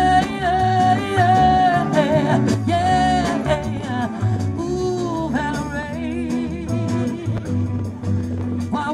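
Live rock-blues band playing: a female lead singer sings long held, wavering notes over electric guitars and a drum kit.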